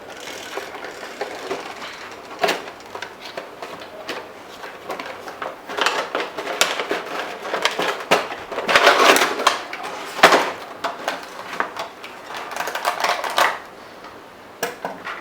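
A toy tricycle being unboxed by hand: irregular rustling of its packaging with scattered clicks and knocks, loudest about nine to ten seconds in.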